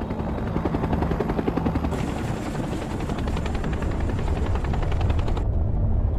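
Bell UH-1 "Huey" helicopter rotor blades chopping rhythmically over a deep engine rumble. The sound turns muffled for a moment near the end.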